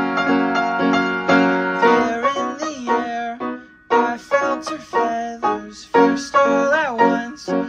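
Music led by piano or keyboard: repeated chords with a melody line that slides in pitch.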